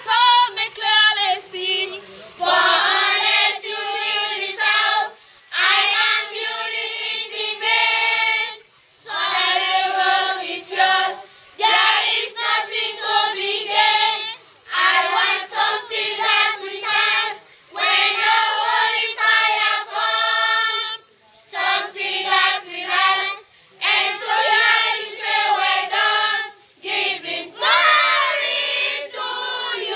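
A group of children and young women singing together in unison, unaccompanied, in phrases a few seconds long broken by short pauses.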